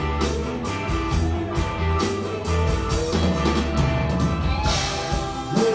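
Live rock band playing: electric guitar over a stepping bass line and a regular drum beat, with a voice coming in near the end.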